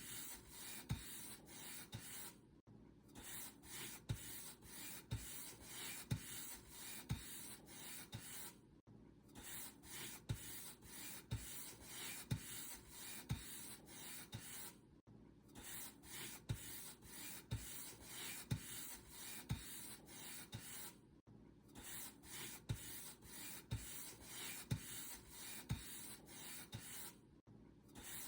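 Paint brush stroking back and forth over a surface in a steady rhythm, a dry scratchy swish about once or twice a second. Each stroke carries a soft low tap, and the sound cuts out briefly about every six seconds.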